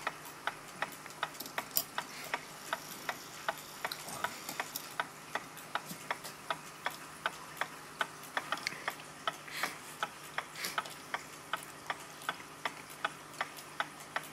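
Vintage German pendulum wall-clock movement ticking steadily, about three ticks a second, its escapement running smoothly with the pendulum swinging freely. Light extra clicks and rubbing come in now and then as the wheelwork is turned by hand.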